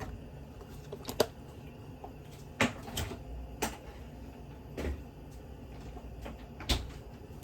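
Kitchen clean-up noises: about half a dozen short, sharp knocks and clacks spread over several seconds as items are put away and cupboard doors are shut.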